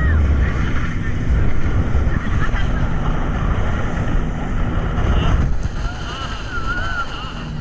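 Wind buffeting the microphone on a speeding motorboat, over engine and water noise, with faint voices.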